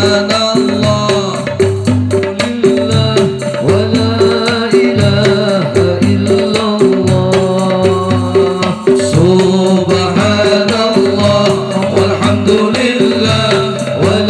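Sholawat: a man singing an Arabic devotional melody through a microphone and PA, over a fast, steady beat of hand-played frame drums.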